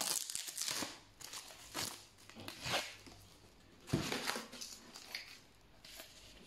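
Rustling and crinkling of plastic and foam packing material as a 3D-printed base plate is handled and lifted in a cardboard box, in uneven bursts, with one sharper knock about four seconds in.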